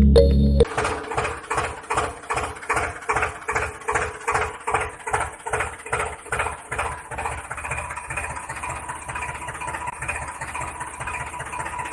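Slow engine-like chugging, about three knocks a second over a faint steady hum, quickening and smoothing into an even run after about seven seconds.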